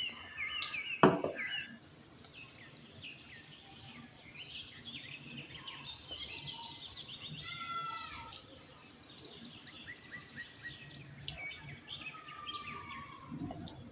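Birds chirping in the background: short calls, quick falling notes and a fast high trill, with a single light knock about a second in.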